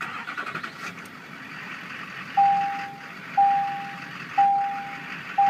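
2005 Duramax 6.6-litre V8 turbodiesel running at a rough idle, its RPM dipping, typical of a failing fuel pressure regulator. From a couple of seconds in, the truck's warning chime sounds four times, about once a second, louder than the engine.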